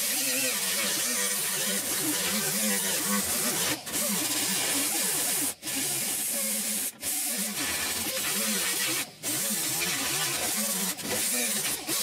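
Small air-powered right-angle grinder with a small abrasive disc grinding the steel of a pickup's inner roof panel, stripping it to bare metal around the cut-out for a patch. It runs as a steady high hiss and stops briefly four times.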